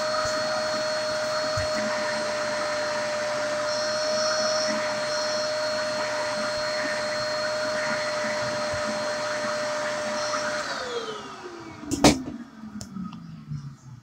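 Vacuum cleaner motor running steadily with a high whine, then switched off about ten and a half seconds in, its pitch falling as the motor winds down. A sharp knock comes about a second later.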